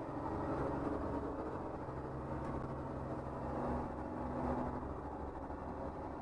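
School bus engine running steadily under load while the bus drives, heard from inside the driver's cab.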